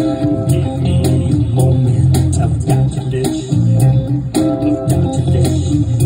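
Electric guitar played through effect pedals and an amplifier, over deep bass notes and a steady beat.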